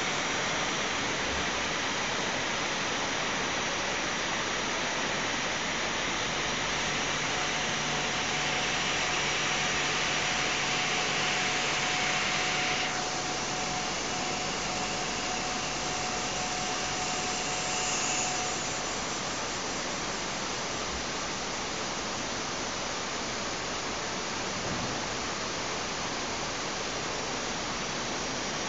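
Ruiheng RHCK8480 CNC mill-roll lathe grooving a hardened steel roll, a steady hissing machining noise with a faint steady whistle through the middle part. The upper hiss thins suddenly a little under halfway, and the overall level drops slightly about two-thirds of the way in.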